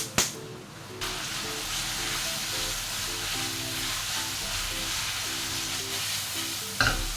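Garlic and shrimp sizzling in olive oil with a little pasta water in a frying pan: a steady sizzle that starts suddenly about a second in, with a sharp clatter near the end, under background music.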